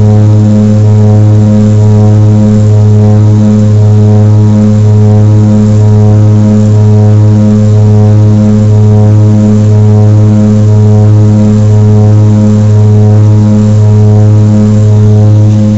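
Turboprop airliner's propellers and engines at climb power, heard inside the cabin: a loud, steady low drone with a stack of overtones and a slow, regular throb.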